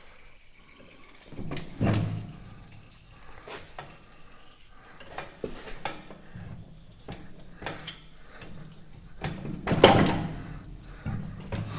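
Scattered metal clanks and knocks from heavy tractor PTO parts and tools being handled, with two louder heavy clunks, about two seconds in and near ten seconds.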